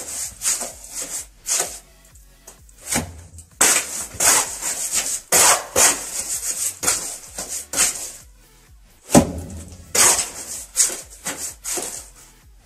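Trowel scraping and spreading cement mortar onto a broken-out concrete block wall, in many quick, rough scraping strokes with a brief pause about two-thirds of the way through.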